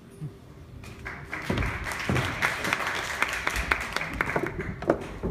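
Audience applauding: the clapping starts about a second in, builds quickly and then holds steady.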